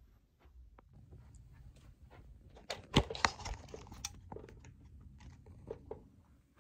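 Handling noise from a phone camera being moved: faint rustling with scattered clicks and knocks, and two loud sharp knocks close together about three seconds in.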